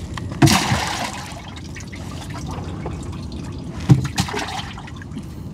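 Water splashing and dripping as a wet gill net is handled in a small boat and fish are picked from it. There is a splash about half a second in and a sharp knock near four seconds.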